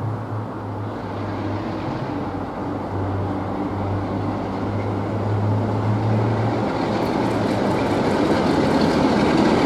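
Class 47 diesel locomotive 47501 running light engine, its Sulzer V12 diesel giving a steady low drone. About two-thirds of the way in the sound spreads into wheel and rail noise with faint clicks and grows louder as the locomotive draws level.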